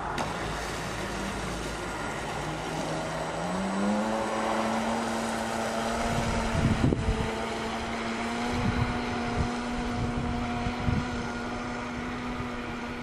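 Electric motor of a radio-controlled model motor yacht running on a 6S LiPo battery: a steady whine that climbs in pitch three to four seconds in as the boat is throttled up, then holds level while the boat planes. Wind gusts buffet the microphone in the second half.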